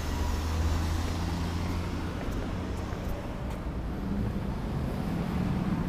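Road traffic on a busy multi-lane street: motor vehicles running past with a steady low engine hum.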